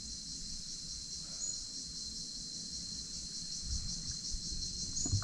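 Steady high-pitched insect chorus with a fine, fast pulsing, over a faint low rumble. Two brief high chirps come through, about a second and a half in and near the end.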